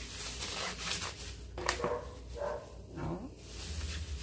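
Thin clear plastic bag crinkling and rustling in the hands as it is handled and gathered closed around a portion of meat, with a few sharp crackles.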